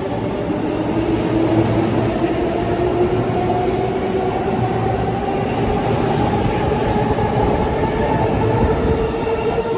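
JR East E233-series electric commuter train pulling out of the station. Its traction motors whine in a pitch that rises slowly as it accelerates, over a steady rumble of wheels on the rails.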